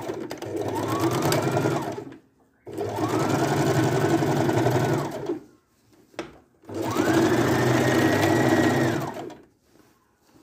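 Household electric sewing machine stitching a straight seam in three runs, each speeding up, running steadily for two to three seconds, then slowing to a stop. A short click falls between the second and third runs.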